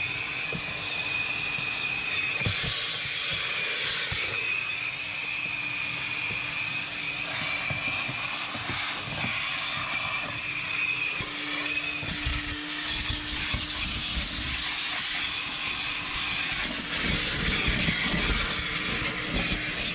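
Self-service car-wash pressure washer spraying water, a steady hiss with a high whine from the pump, cutting off suddenly at the end.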